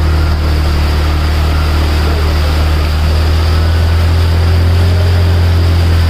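Motorcycle engine running at a steady speed while the bike rides through shallow floodwater, a constant low drone over a steady rush of water spray.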